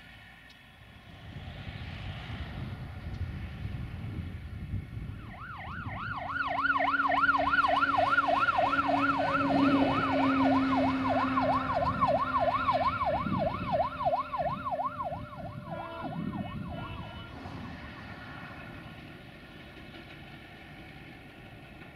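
Fire engine siren in a fast rising-and-falling yelp, growing louder, then fading and stopping about three quarters of the way through, with a steady lower tone alongside it for several seconds.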